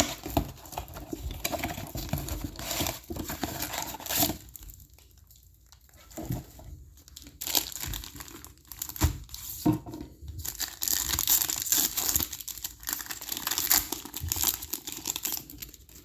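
Plastic wrapping on a trading-card blaster box and its packs being torn open and crinkled by hand, in irregular bursts with a short lull about five seconds in and steady crinkling again from about ten seconds in.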